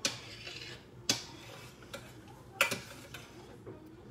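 A stirring spoon knocking against the side of a metal saucepan of simmering rice: sharp ticks at uneven spacing, about once a second.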